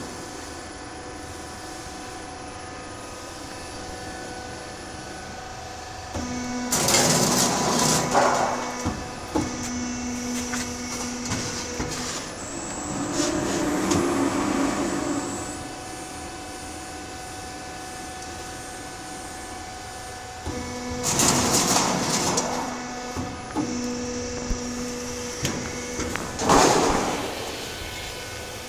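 Automatic cut-to-length machine for thin (0.8 mm) steel sheet running with a steady hum. Twice a louder stretch of rolling and knocking comes as the sheet is fed through the rollers and sheared, with a sharp loud knock near the end.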